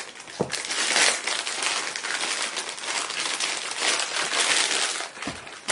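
Clear plastic bag wrapped around a metal tripod crinkling and crackling as hands pull and work it open, a continuous rustle with a couple of soft low knocks, one about half a second in and one near the end.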